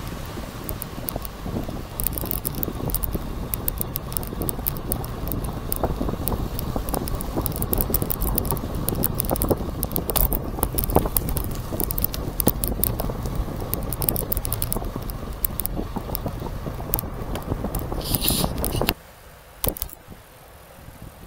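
Wind buffeting the microphone while a bicycle is ridden, with constant rattling and clicking from the bike and its camera mount on the road. It drops off abruptly to a much quieter background about nineteen seconds in.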